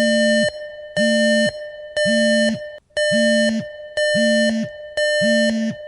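Mobile phone's emergency alert tone, as sent in the Government of India's cell-broadcast test alert: a loud beep repeated six times, about once a second. Under each beep the phone's vibration buzzes and winds down as the beep stops.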